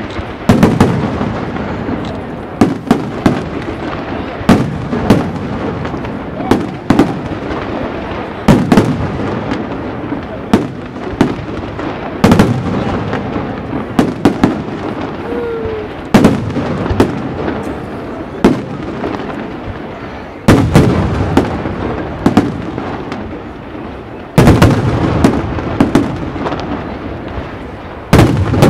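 Aerial firework shells of a castillo display bursting one after another: sharp bangs every second or so over continuous crackling, with heavier volleys about every four seconds.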